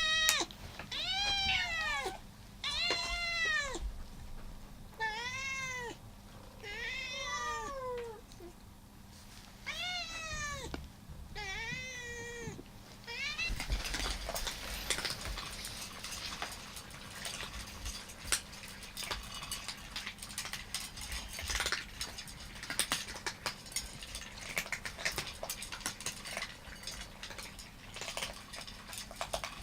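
Domestic cats meowing: about seven separate rising-and-falling meows over the first dozen seconds. After that comes a run of quick scattered clicks and crunches, typical of cats chewing dry food from bowls.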